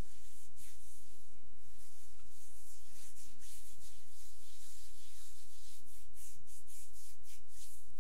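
Palms rubbing back and forth over the bare skin of a person's upper back and shoulder during a massage rub-down: a run of soft, hissing brushing strokes, a little quicker in the second half.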